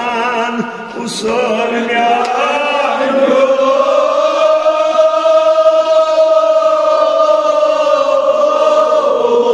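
Men chanting a Kashmiri marsiya, a Shia elegy, together in a slow sung recitation. Short phrases open it, then one long held note from about four seconds in.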